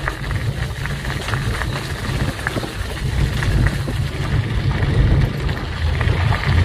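Steady low rumble of a moving vehicle, with wind buffeting the microphone.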